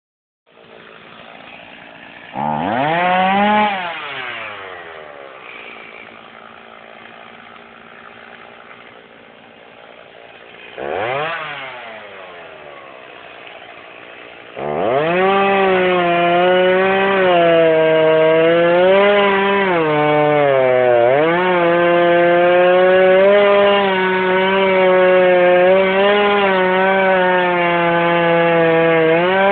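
Stihl MS 290 Farm Boss two-stroke chainsaw idling, revved briefly twice, then held at high revs cutting into a log from about halfway through. The pitch dips and recovers a few times as the chain bites into the wood.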